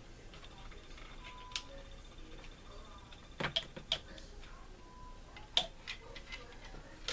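Small plastic parts of a scale model kit clicking and tapping as they are handled and pressed into place: scattered sharp clicks, a quick cluster of three or four in the middle and a single louder one a couple of seconds later.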